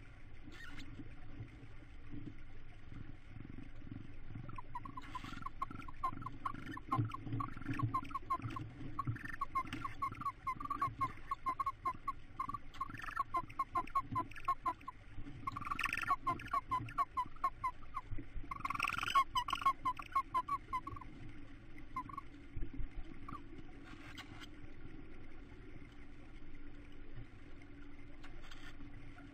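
Tawny owls in a nest box at a feeding: a long run of quick, high chittering notes starts a few seconds in and dies away about two-thirds of the way through. Soft rustling and shuffling on the nest litter runs underneath.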